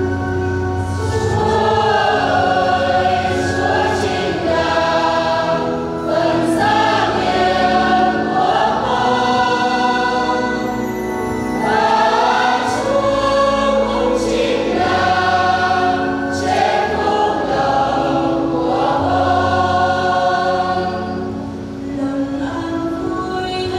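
Choir singing a Vietnamese Catholic hymn with keyboard accompaniment, the voices rising and falling over steady held bass notes.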